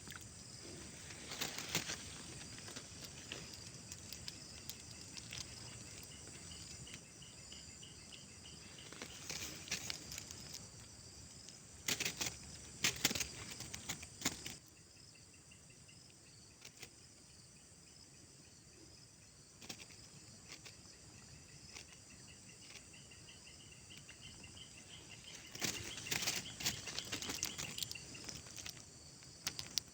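Steady high-pitched insect chorus. Several short clusters of louder clicks and rustling break in over it: the first about a second and a half in, the loudest around the middle, and another near the end.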